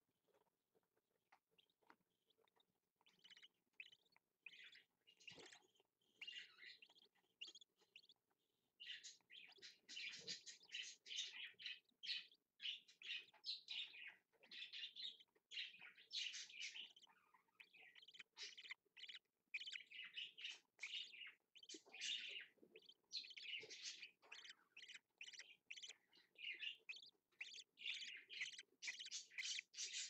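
Budgerigars chirping: a rapid run of short, high chirps, scattered at first and nearly continuous from about nine seconds in.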